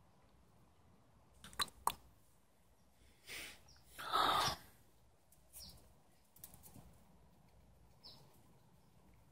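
Small bird chirping faintly outdoors, short high chirps repeating every couple of seconds. Two sharp clicks come about one and a half seconds in, and a louder half-second rush of noise, the loudest sound here, about four seconds in.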